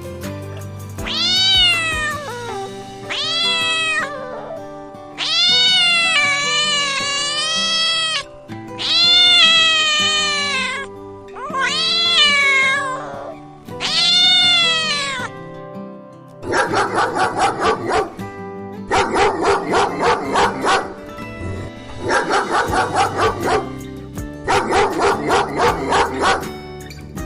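Domestic cat meowing, about seven long, drawn-out meows that rise and fall in pitch. From a little past halfway, a dog barks in quick runs of rapid yaps, each run lasting about two seconds. Background music plays underneath.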